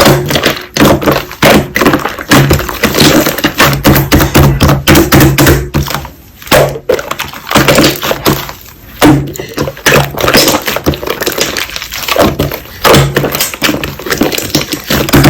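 Slime being squeezed, pressed and poked by hand, giving a dense, irregular run of sticky pops and clicks.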